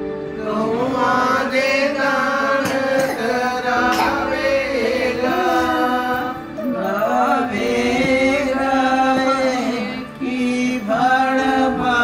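Sikh devotional singing (kirtan): voices sing long, drawn-out lines over a steady instrumental drone, with two short breaks between phrases.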